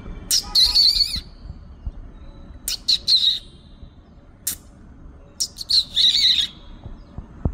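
A bird giving harsh calls in three groups, each a few sharp notes followed by a longer rasping call, with a single sharp note between the second and third groups.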